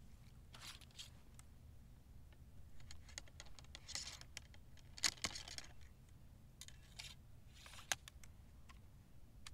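Faint rustling and small sharp metallic clicks from loading an Austrian M1854 Lorenz muzzle-loading rifle-musket with a paper cartridge, the sharpest clicks about five and eight seconds in.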